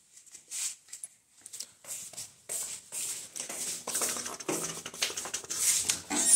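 Flip-flop footsteps slapping along a stone floor, with hens clucking. A mesh door rattles open near the end.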